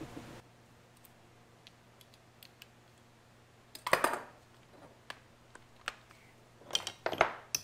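Light metal clicks and clinks of tools being handled, as a socket is fitted onto a cordless impact wrench. There is a short cluster of clattering about four seconds in and another near the end, with quiet between them.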